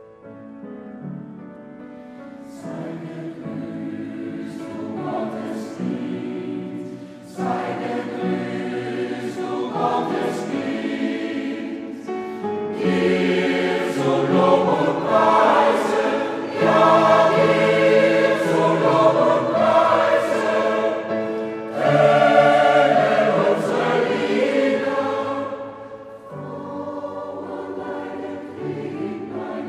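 Mixed choir singing, starting soft, swelling to its loudest through the middle and falling back softer near the end.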